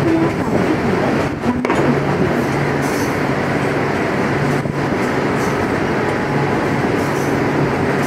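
Steady running noise of a moving train heard from on board, a continuous rumble of wheels on the track with a low hum that comes and goes.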